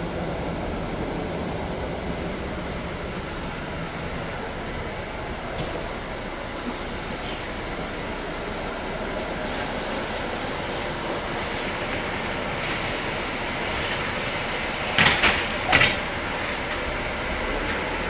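Steady running noise heard inside a moving city bus, with stretches of added high hiss. About fifteen seconds in come a few short, loud high-pitched sounds.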